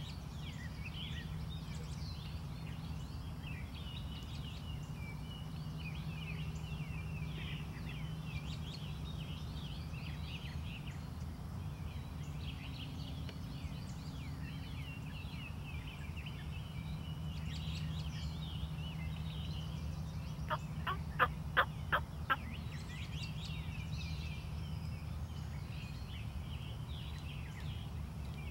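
Wild turkey gobbler gobbling once, a rapid rattle of about six notes lasting about two seconds, about two-thirds of the way in. Small birds chirp throughout over a low steady hum.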